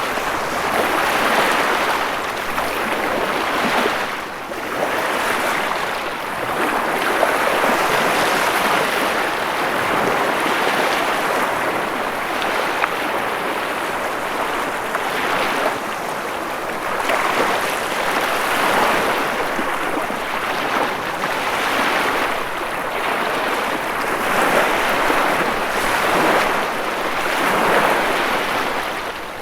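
Ocean waves washing onto a shore in a continuous rush, swelling and easing every few seconds.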